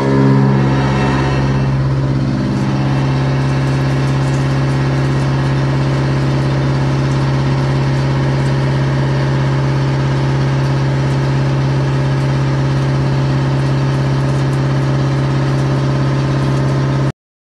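CNC milling machine cutting a bronze part under flowing coolant: a loud, steady machining hum with a strong low tone. Its pitch shifts over the first two seconds or so, then holds steady.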